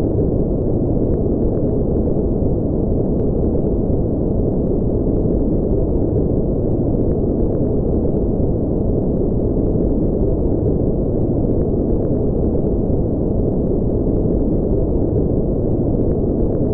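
Steady low rumbling noise like brown noise: a spaceship-engine ambience sound effect that holds even throughout, with no rise, fall or pitched tone.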